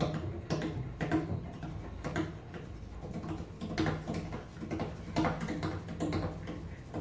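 Solo cello played with percussive bow strokes: irregular sharp clicks and taps over low held notes.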